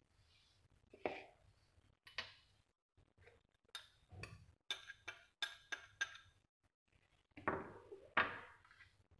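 Dishes clinking and knocking while wheat flour is tipped from a glass bowl into a plastic mixing bowl. A few single knocks come first, then a quick run of light taps as the bowl is shaken out. Near the end there are two louder clinks as the bowls are set down and picked up.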